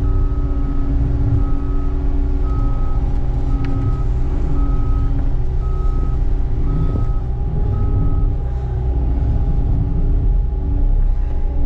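Skid steer engine running steadily while its backup alarm beeps about once a second, eight beeps, then stops as the machine quits reversing. The engine keeps running after that.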